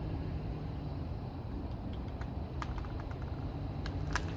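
A 4x4 truck's engine runs steadily under load, pulling on the cable. A few sharp cracks come about halfway in and grow more frequent near the end as the cabled alder starts to give way.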